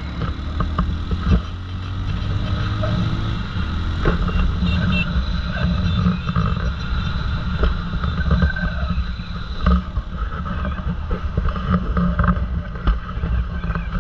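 Motorcycle engine running under heavy wind buffeting on the helmet-mounted microphone while riding, the engine rising in pitch as it accelerates about two to three seconds in.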